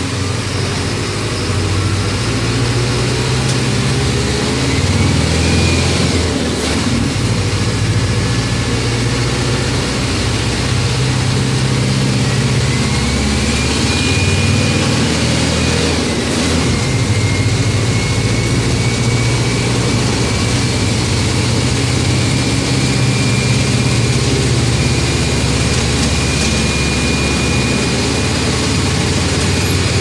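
Mercedes-Benz OM 924 LA four-cylinder inline diesel of an OF-1722M city bus, 218 hp, running with a steady low rumble. A thin high whine rises in pitch several times over it.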